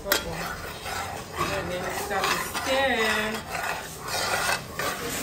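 A metal spoon scraping and clinking against an aluminium pot as milk is stirred into hot oil. A brief voice sounds in the background about midway through.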